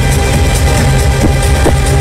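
Electronic dance music from a DJ set played loud over a concert sound system, with heavy bass and a steady beat.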